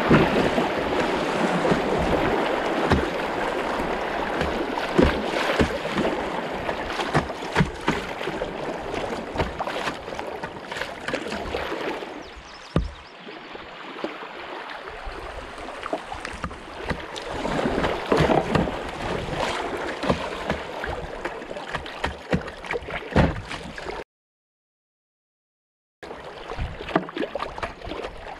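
Moving river water rushing and splashing against a plastic kayak hull, heard close from a bow-mounted camera, with irregular sharp splashes and knocks. It gets quieter about halfway through, and the sound cuts out completely for about two seconds near the end.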